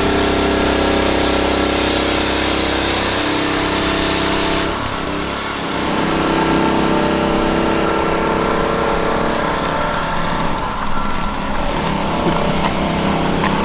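A motor vehicle engine running steadily, its pitch stepping up and down a few times. The sound changes abruptly about four and a half seconds in.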